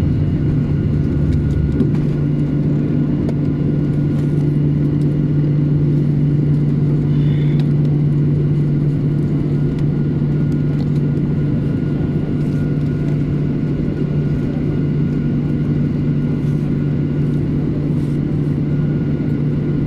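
Cabin noise of a Boeing 737-800 rolling out and turning off the runway after landing: a steady, loud drone from its CFM56 turbofan engines with a thin steady whine above it. A deeper rumble underneath drops away about two seconds in.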